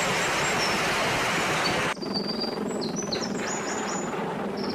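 A steady rushing noise that cuts off suddenly about two seconds in. After it, small birds chirp several times over a quieter background hiss.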